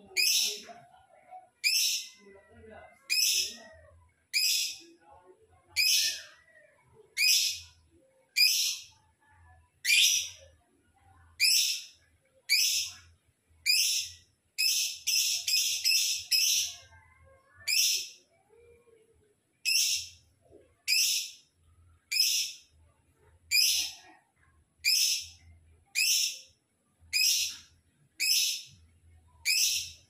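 Lovebird giving high-pitched calls, one about every second and a quarter. About halfway through, five or six calls come in a quick run.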